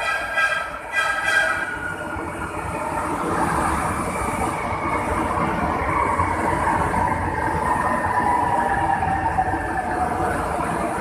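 Four-car MRT-3 CKD Tatra light rail train entering the station, giving two short horn blasts at the start. Its motors then whine in a tone that falls steadily in pitch as the train slows alongside the platform, over a constant rumble of wheels on rail.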